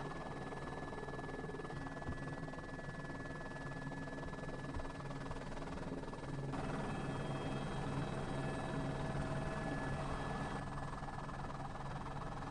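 Steady drone of helicopter rotor and engine noise, with a thin high whine running through it; it grows a little louder about six seconds in.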